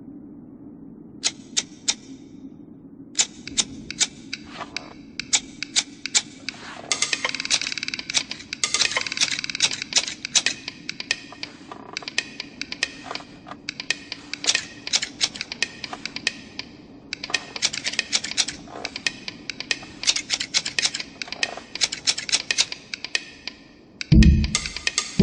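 Sharp clicking of knitting needles, a few separate clicks at first, then quickening into a fast, dense clatter. Near the end a loud drum beat cuts in.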